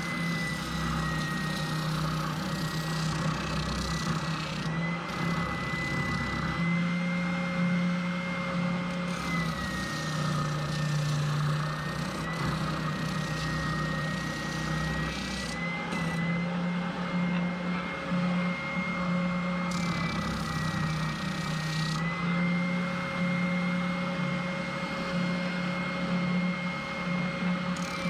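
Electric sander running steadily with a high motor whine and a low hum, sanding the edge of an aluminum plate; the whine dips slightly in pitch a few times.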